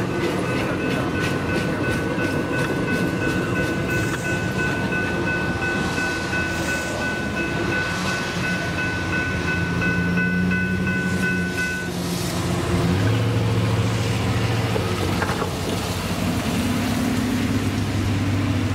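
The last empty flatcars of a freight train clatter through the crossing in a regular wheel rhythm that fades off. A GS Type 3E railroad crossing bell rings throughout the first part and cuts off suddenly about 12 seconds in, as the crossing deactivates. After that, road vehicles hum over the crossing.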